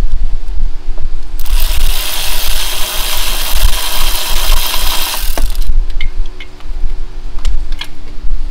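Hand tools clicking and rattling against parts in a car's engine bay, with a steady loud hiss of about four seconds that starts a second and a half in and cuts off suddenly. A low rumble runs underneath.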